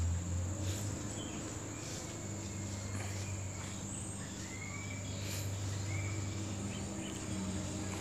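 Insects trilling steadily at a high pitch over a low steady hum, with a few short rising chirps in the middle and faint clicks of handling.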